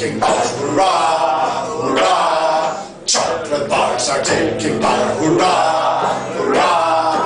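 A man chanting and singing without words in a sound-poetry performance, his voice sounding almost choir-like, with a brief pause about three seconds in. A steady low hum runs underneath.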